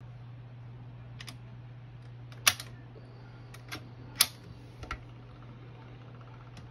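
Montgomery Ward Airline record changer being switched on and cycling: a series of sharp mechanical clicks and clunks from the start lever and changer mechanism, the two loudest about two and a half and four seconds in, over a steady low hum.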